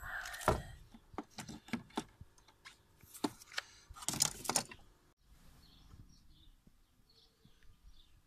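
Sharp metallic clicks and short rattles from a car battery's terminal clamp being worked loose and handled, with a dense burst of clicks near the middle. After about five seconds it goes quieter, with a few faint high chirps.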